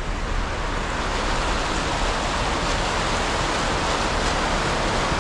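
Muddy floodwater rushing across a road in a steady, even wash of noise.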